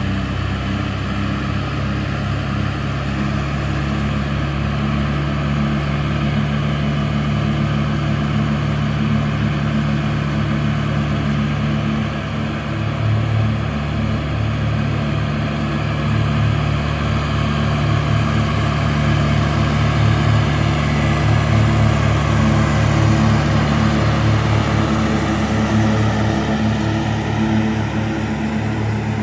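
Small farm tractor's engine running steadily as the tractor moves about, a low drone that pulses and grows a little louder past the middle.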